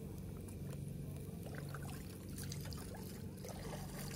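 Prawn skewers sizzling faintly over glowing charcoal on a kettle grill, with scattered small crackles, over a steady low hum.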